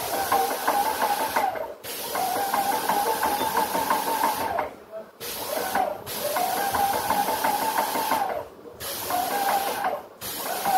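Ultrabest Bheem airless paint sprayer's piston pump running in bursts of one to three seconds with short breaks, about six times. Each burst comes with a strong hiss, and the pump's rapid pulsing note rises as it starts and falls as it stops.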